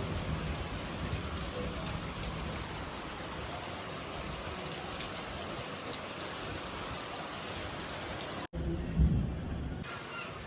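Steady rain falling, a dense hiss of drops with scattered individual drop hits. About eight and a half seconds in the sound cuts out abruptly and comes back muffled, with a low thump, the loudest moment.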